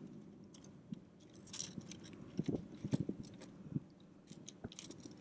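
Faint, scattered small clicks, taps and rustles of hands handling a freshly caught fish and a soft-plastic lure, working the hook loose.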